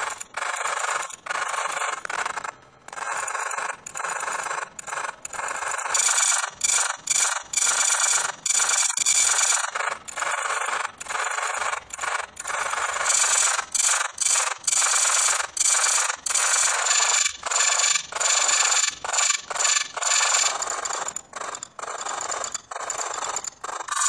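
Heavily effects-processed audio from an animated logo: harsh, scratchy noise with no bass, chopped into rapid stuttering pulses several times a second.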